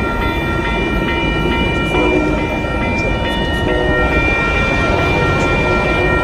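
Metra F40PH-2 diesel locomotive running with its train: a loud, steady rumble of engine and wheels, under several high steady tones held throughout.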